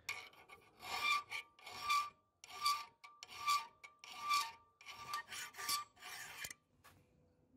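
Hand file rasping across the steel jaw of an old rusted wrench clamped in a vise. It goes in about eight even strokes, a little under one a second, each with a faint metallic ring, and the filing stops shortly before the end.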